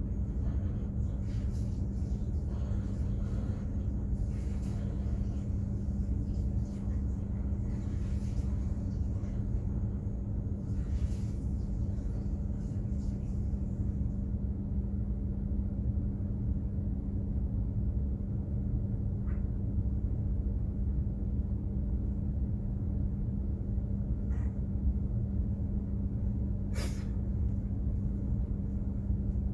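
Container ship's engine machinery running: a steady low rumble with a constant hum, and a single sharp click near the end.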